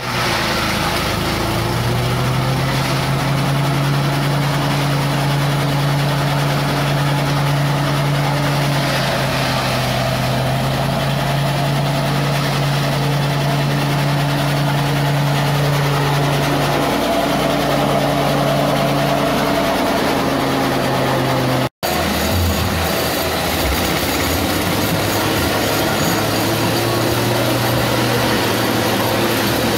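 Forage chopper (chaff cutter) driven by a small petrol engine running steadily at speed while fodder is fed in and chopped, its pitch dipping briefly a couple of times. About two-thirds of the way through the sound cuts out for a moment and comes back as a rougher, lower machine noise as green grass is fed into the chopper.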